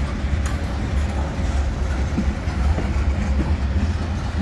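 Freight train's covered hopper cars rolling past close by: a steady low rumble of steel wheels on the rails, with a few faint clicks.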